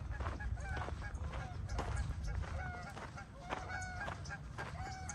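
Waterfowl calling with short, repeated honks, several in a row through the middle and end, over footsteps on the path.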